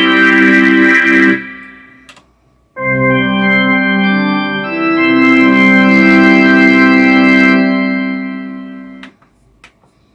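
Roland D-50 synthesizer playing organ patches: a 'Synthy Organ' chord that stops about a second and a half in and dies away, then a church pipe-organ patch playing sustained chords from about three seconds in, cutting off shortly before the end. A few faint clicks follow.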